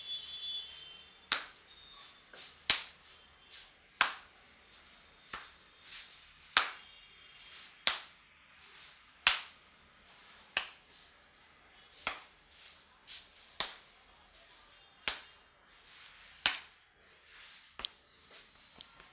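Sharp hand claps or slaps of a head massage, struck in a steady rhythm of about one every 1.3 seconds, a dozen or so strong ones with fainter taps between.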